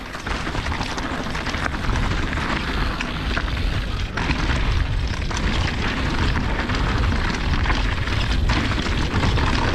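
Wind rumbling on a helmet-mounted camera's microphone and mountain bike tyres crunching over a dry dirt and gravel trail during a downhill ride, with a few sharp knocks as the bike goes over rough ground.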